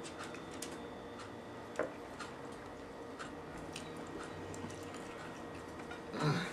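A man eating a piece of lobster tail: faint chewing and small clicks, with one slightly louder tick about two seconds in and a short sound from his voice near the end.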